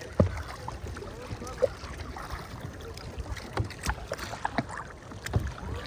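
Paddling on a lake: a kayak paddle dipping and splashing in the water beside inflatable paddleboards and a kayak, with occasional light knocks and clicks of paddles and boards.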